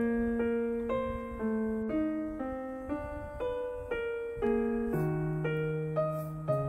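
Background piano music: a slow melody of single notes, each ringing and fading before the next, about two notes a second.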